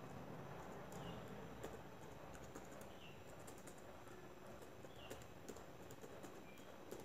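Faint clicking of a computer keyboard being typed on, picked up by the narrator's microphone. Short faint high chirps come through about every two seconds.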